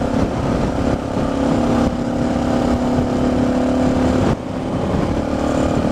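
Suzuki DR650's single-cylinder engine running steadily at road speed under a low wind rumble on the helmet microphone; the engine note and level drop suddenly about four seconds in.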